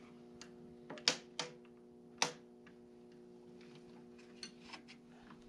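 Latch and handle of a Cat skid steer's replacement glass cab door clicking and clunking as it is unlatched and swung open: a handful of sharp clicks in the first two and a half seconds, then a couple of fainter taps near the end, over a steady low hum.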